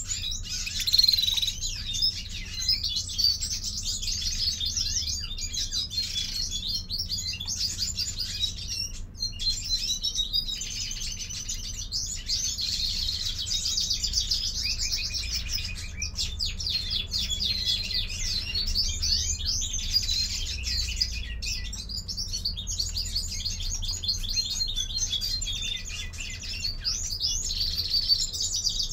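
European greenfinch twittering: a continuous stream of rapid chirps and short whistled notes, over a steady low hum.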